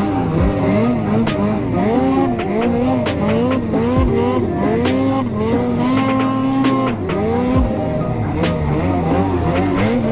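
Ski-Doo 850 two-stroke snowmobile engine revving up and down over and over as the throttle is worked through deep powder, holding a steady high pitch for about a second past the middle. Scattered sharp clicks and knocks sound over it.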